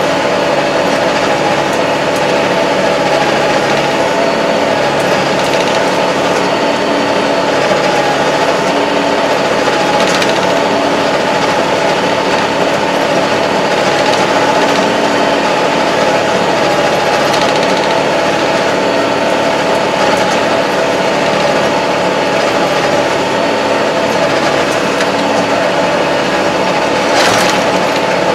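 Kubota MZ755 tractor's diesel engine running steadily under way, heard inside the closed cab, with a brief knock near the end.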